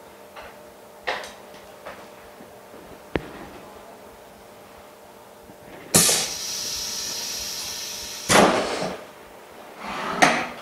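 OCA vacuum laminator venting: a few small clicks, then about six seconds in a sudden hiss of air that holds steady for about two seconds, followed by a louder rush of air as the pneumatic press lifts. Near the end comes a short scraping burst as the mould tray is slid out.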